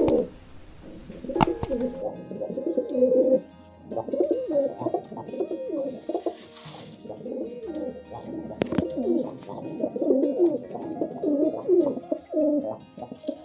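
Several domestic pigeons cooing, their coos overlapping almost without a break, with a couple of sharp clicks.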